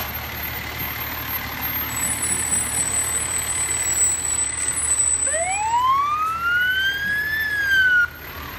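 A fire engine passing close by with its engine running. About five seconds in, a siren winds up, rising steadily in pitch, then starts to fall and cuts off abruptly near the end.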